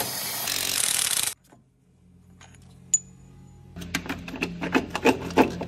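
Cordless impact driver running on a loosened engine-mount bolt for just over a second, then cutting off abruptly. A single sharp metallic tick follows, then a run of irregular light metallic clicks and knocks as the mount and its bolts are handled.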